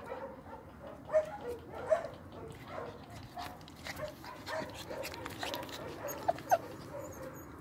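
Puppy whimpering in a run of short, high cries, with a few sharper yips, two of them in quick succession late on.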